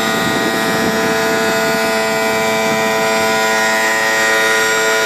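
BOSS snow plough's electric-hydraulic pump motor running with a steady whine under load, driving the lift ram to raise the plough's lift frame. It stops abruptly near the end.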